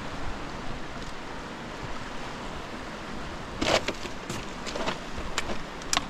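Fast mountain river rushing steadily. From about halfway there are several sharp scuffs and knocks of footsteps on rock, the loudest just past halfway.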